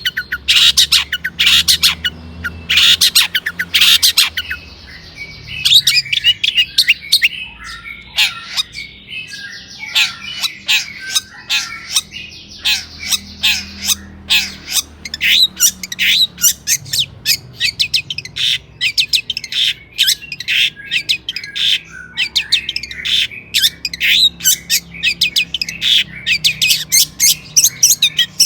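Long-tailed shrike singing a fast, harsh song of rapid chattering notes, with a softer stretch of varied warbling phrases about a third of the way in.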